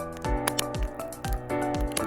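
Background music with a steady beat: a kick drum about twice a second under held chords, with crisp ticks between the kicks.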